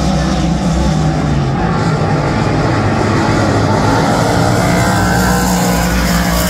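Dirt-track race car engines running hard at racing speed, a loud, steady engine drone.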